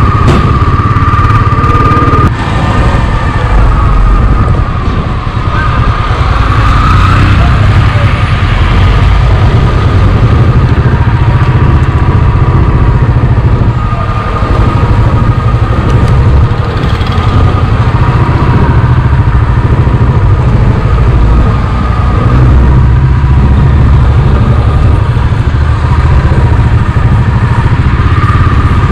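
Royal Enfield motorcycle running steadily on the move, under a loud continuous low rumble, with a steady high tone throughout.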